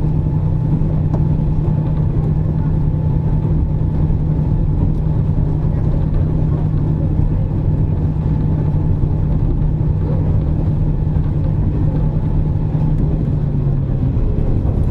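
KiHa 47 diesel railcar running along the line, heard from inside the car: a steady diesel engine drone over continuous running rumble. Near the end the engine note drops a little.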